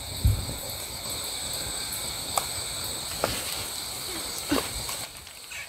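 A plastic sausage packet being pulled and twisted by hand as someone struggles to tear it open, with a thump near the start and a few short sharp crackles. Crickets chirp steadily underneath.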